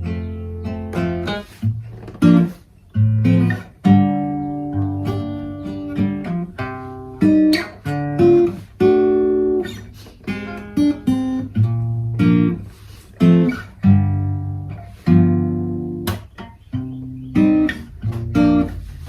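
Acoustic guitar playing a chord progression in B-flat Mixolydian: chords are struck one after another and left to ring and fade, some in quick pairs.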